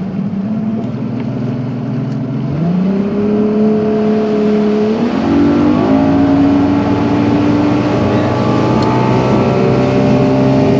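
Boat's Yamaha outboard motor throttling up from low speed: its pitch climbs in a step about two and a half seconds in, another about five seconds in, then keeps rising slowly and getting louder as the boat speeds up to get on plane.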